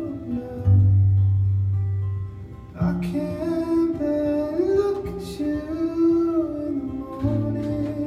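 A man singing live to his own strummed acoustic guitar; a low note is held early on and the sung line moves more from about three seconds in.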